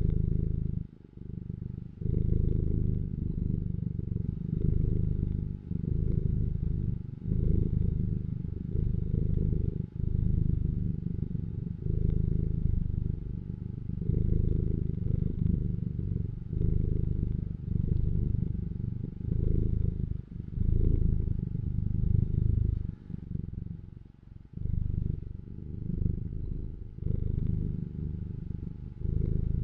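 Domestic cat purring close to the microphone: a deep, steady rumble that swells and breaks briefly with each breath, about every one to two seconds.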